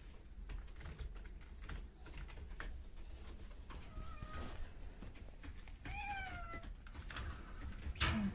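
Domestic cat meowing twice, a short meow about four seconds in and a longer, bending meow around six seconds, over scattered light clicks and taps, with one sharper click near the end.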